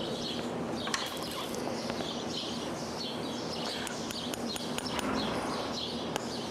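A small bird chirping over and over, about twice a second, over a steady low hum, with a few faint clicks.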